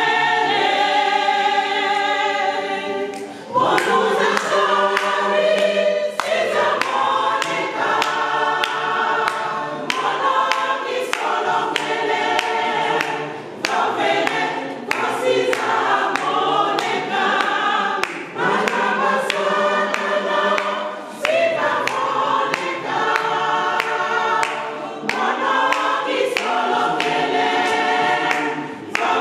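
A choir singing a hymn in phrases a few seconds long, with a regular sharp beat alongside the voices.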